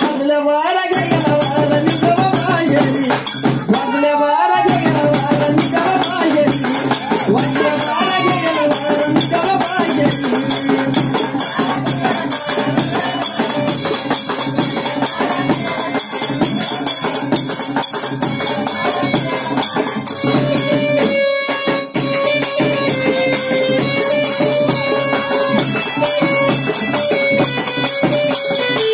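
Live Marathi folk song: a singer's voice over steady jingling hand percussion. From about two-thirds of the way in, a sustained instrumental melody line carries on in place of the voice.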